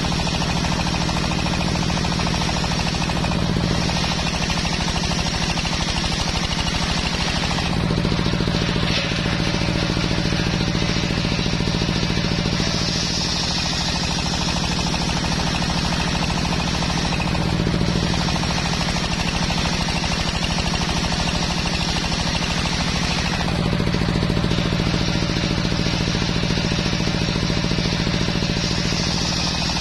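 Large belt-driven table circular saw ripping a teak plank lengthwise: the drive hums steadily while the blade's cutting noise swells and eases several times as the plank is pushed through.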